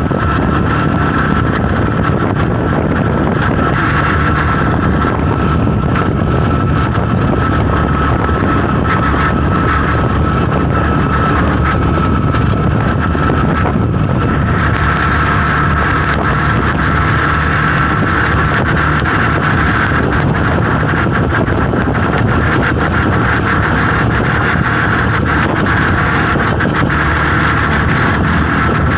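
Engine of an open-sided passenger vehicle running steadily at cruising speed, heard from on board, with road and wind noise and a steady high whine.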